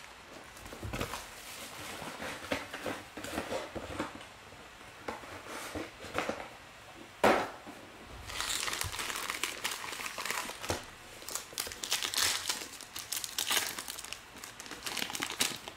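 Foil trading-card pack wrappers crinkling as packs are handled, then denser crinkling and tearing from about halfway as a pack is ripped open. A single sharp knock about seven seconds in is the loudest sound.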